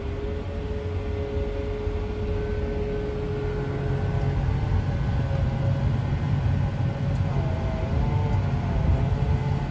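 Tractor engine running steadily with a low rumble and a faint steady whine as the tile plow is dropped into the ground. The whine wavers in pitch about eight seconds in.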